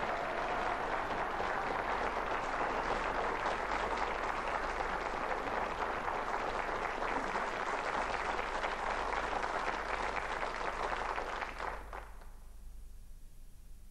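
Audience applauding: dense, sustained clapping that cuts off abruptly about twelve seconds in, leaving a faint low hum.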